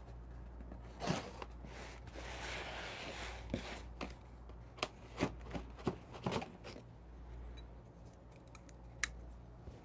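Folding pocket knife cutting the packing tape on a cardboard box: a soft drawn slicing sound, with scattered light clicks and taps of the blade and box.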